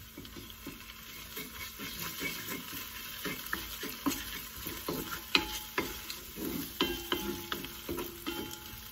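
A spatula stirring and scraping onions and ginger-garlic paste around a Lodge 9-inch cast iron mini wok as they fry in oil, with a light sizzle under it. The scraping strokes come several times a second and get louder and sharper about halfway through, with a few ringing scrapes of spatula on iron.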